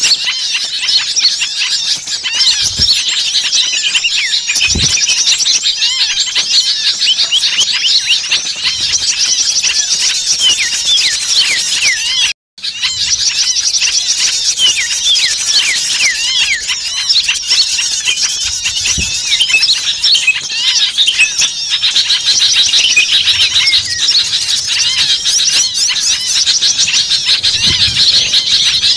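Dense, loud chorus of many small songbirds chirping, trilling and shrieking over one another: an agitated small-bird lure recording. It breaks off for a split second about halfway through.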